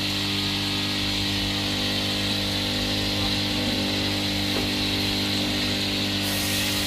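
Electric multi-purpose vegetable chopper running with a steady hum, its blades chopping leafy vines as they are fed into the hopper.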